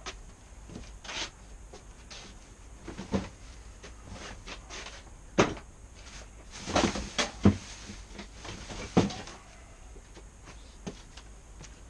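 Scattered knocks and clunks of a motorcycle fork leg being handled while it is dismantled and drained of oil: a few separate knocks spread through, with a cluster of the loudest about halfway through.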